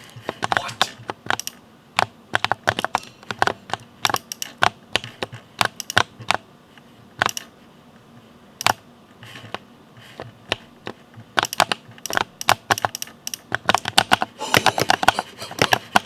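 Typing on a mechanical keyboard: irregular key clicks and clacks, sparse single strokes through the middle and a fast, dense run of keystrokes near the end.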